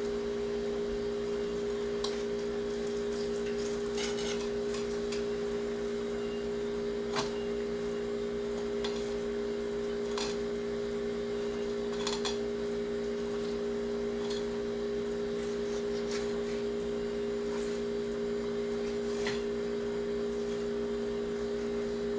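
A steady hum holding two low tones without change, with a few faint, scattered clicks and scrapes from a fillet knife cutting along a bass's spine and ribs on a cutting board.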